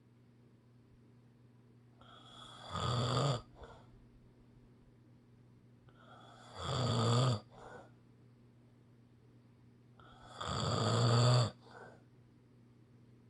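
A sleeper snoring: three loud snores about four seconds apart, each lasting about a second and followed by a short puff of breath.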